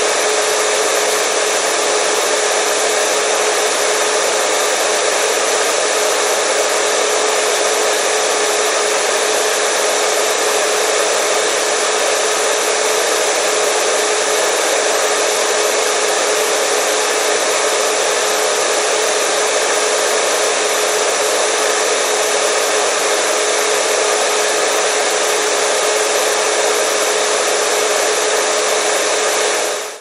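Steady white noise of the kind played to calm a crying baby, with a constant mid-pitched hum running through it. It fades out at the very end.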